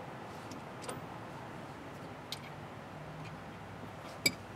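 Three short sharp clicks over a faint steady background hiss: one about a second in, one halfway through, and a much louder one near the end.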